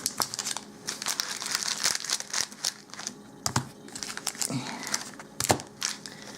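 Foil wrappers of Magic: The Gathering booster packs crinkling as they are handled and dealt, with several sharp slaps as packs land on the piles.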